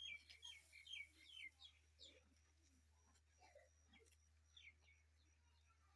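Faint bird chirps: a quick series of short, falling chirps in the first second and a half, then a few scattered ones later, over a low steady hum.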